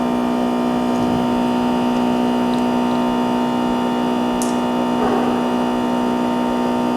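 Steady electrical hum made of many evenly spaced tones, unchanging in level, with a faint tick about four and a half seconds in.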